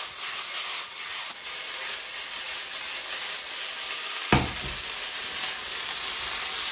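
Marinated chicken pieces sizzling as they fry in hot oil in a pan over high heat, searing without releasing their juices. A single sharp knock comes about four seconds in.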